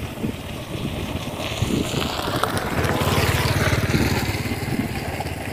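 Engine of a passing vehicle, growing louder to a peak about three and a half seconds in, then fading.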